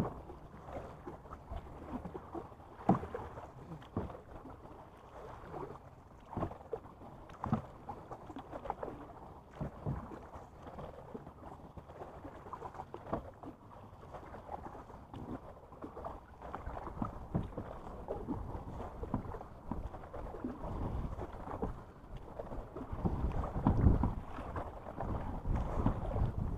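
Kayak paddling: a paddle dipping and splashing in choppy water, with scattered sharp knocks and clicks. Wind rumble on the microphone grows near the end.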